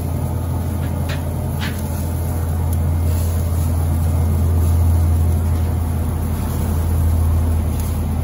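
Steady low hum and rumble of a Weber SmokeFire pellet grill running hot with its lid open, swelling a little in the middle. Two faint clicks come about a second in.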